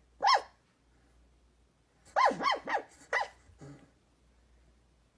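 Australian cattle dog (blue heeler) puppy whimpering and yipping in its sleep as it dreams: one short high whimper, then about two seconds later a quick run of four more, each rising and falling in pitch, and a faint low one after them.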